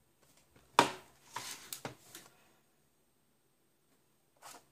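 A cardboard DVD case being opened out and laid on a wooden table: a sharp knock about a second in, then a second of cardboard scraping and clicking, and a brief scrape near the end.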